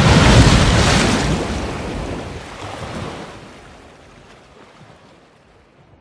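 Sea surf with wind buffeting the microphone, loudest at first and fading gradually away to nothing.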